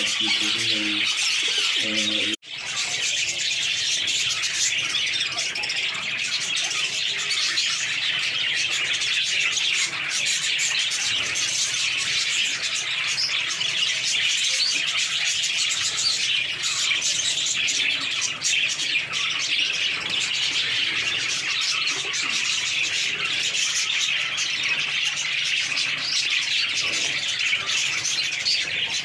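Many caged budgerigars chattering and chirping together in a dense, unbroken chorus. The sound cuts out for an instant about two and a half seconds in.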